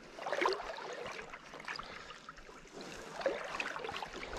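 Shallow seawater sloshing and splashing around someone wading through it, with a louder swish about half a second in and another a little after three seconds.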